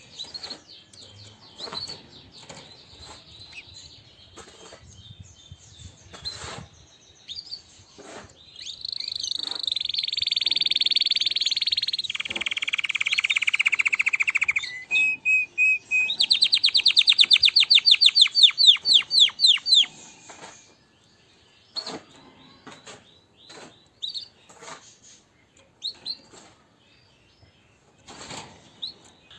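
Red factor canary singing: a long song phrase of rolling trills, from a high buzzy trill through a lower roll and three short notes to a fast rapid trill, starting about a third of the way in. Short chirps and light clicks come before and after it.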